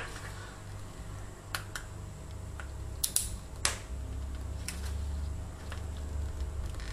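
Irregular clicks and crackles of a stiff clear plastic blister pack being handled as a two-component glue syringe is worked in and out of it, over a low steady hum.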